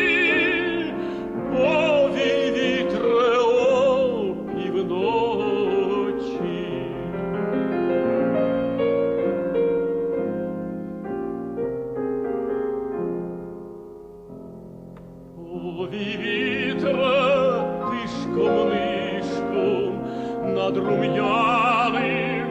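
Operatic tenor singing with strong vibrato over piano accompaniment. The voice drops out after about four seconds for a piano passage that grows quieter, then comes back in with a sustained phrase over the piano about two-thirds of the way through.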